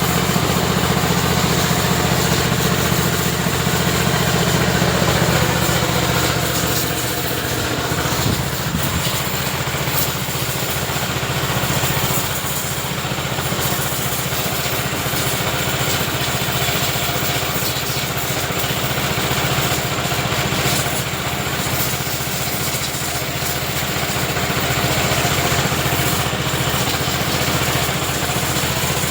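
Pressure washer running steadily: a continuous motor-and-pump drone under a steady hiss of the water jet spraying.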